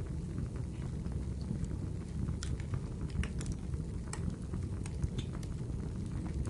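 Wood fire in a fireplace crackling: a steady low rumble of burning with irregular sharp pops and snaps scattered through it.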